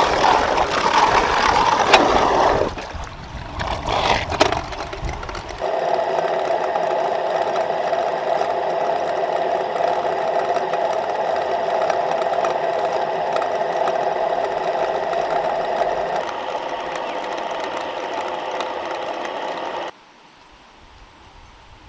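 Water gushing into a concrete channel, then a few seconds in a small water-driven generator spins up and runs with a steady whirring hum. The hum cuts off suddenly near the end, leaving faint outdoor background.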